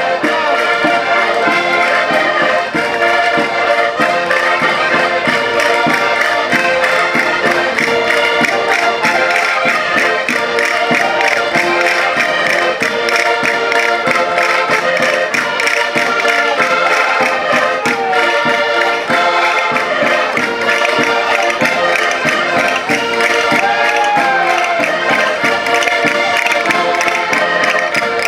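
Several concertinas playing a lively Portuguese chula in dense, sustained chords over a steady, even beat.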